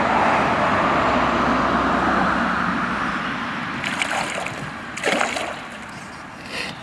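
Water splashing at the surface as a hooked bass is played near the boat: a steady wash of noise fading over the first few seconds, then short splashes about four and five seconds in and another near the end.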